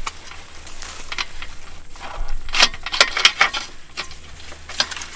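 Metal climbing tree stand being handled as its lower platform is fitted to a pine trunk: scattered knocks, rattles and scraping with rustling between them, densest in a cluster of sharp knocks about halfway through.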